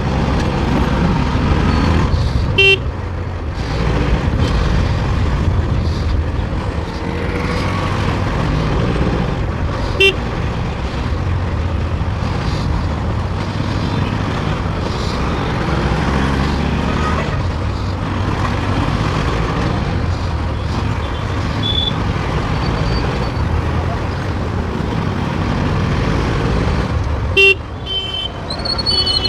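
Bajaj Pulsar NS200's single-cylinder engine running steadily on the move in road traffic. Short horn toots sound about three seconds in, about ten seconds in, and twice near the end.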